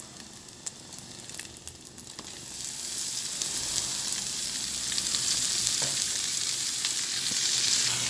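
Bacon frying in its own rendered fat in a small pan, with scattered crackles. About two and a half seconds in, a much louder steady sizzle starts as sliced sausage is tipped into the hot fat.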